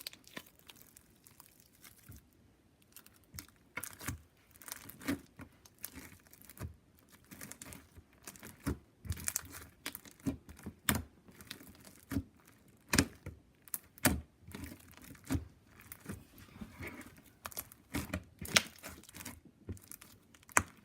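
Clear slime packed with small elastic hair bands being squished and pulled by hand, giving irregular sticky crackles and pops.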